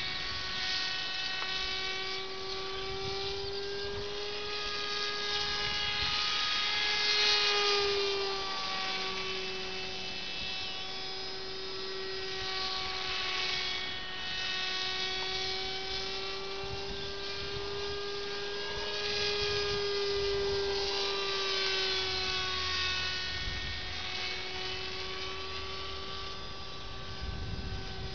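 Battery-powered RC model plane's electric motor and pusher propeller whining in flight. The steady whine slowly rises and falls in pitch and swells louder twice, about a third of the way in and again past the middle, as the plane passes.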